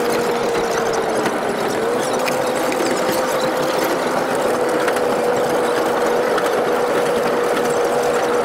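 Sound of a sugar-railway train ride sped up eight times: the train's running noise becomes a rapid mechanical chatter under one steady hum, which dips in pitch briefly a second or so in and then returns.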